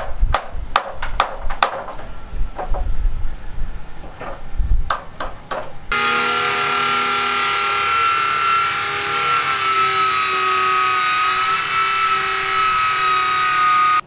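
A series of sharp knocks on old wooden planks. About six seconds in it gives way abruptly to a steady motor whine with hiss, which cuts off at the end.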